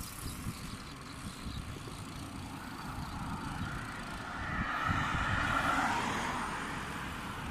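Wind rumbling on the microphone of a camera carried on a moving bicycle. Over it, a passing vehicle swells to a peak about five seconds in and then fades.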